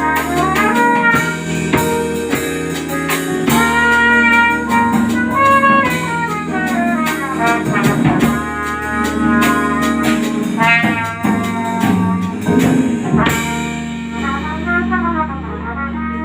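A family band playing an original song: an instrumental passage with steady drum hits under melodic lead lines. The drums stop about thirteen seconds in, leaving held notes as the music thins out toward the ending.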